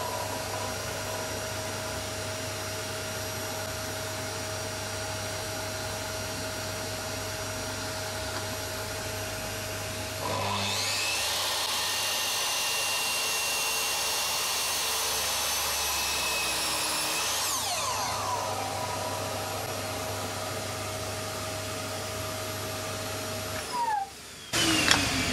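Makita slide compound miter saw with a newly fitted blade: about ten seconds in its motor spins up with a rising whine, runs through a cut in wood for about seven seconds, then winds down. Under it a steady machine drone runs until near the end, when it too winds down and stops.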